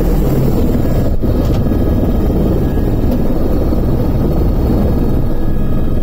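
Helicopter turbine engine and main rotor running, heard from inside the cabin. A loud, steady rumble with faint steady whine tones above it.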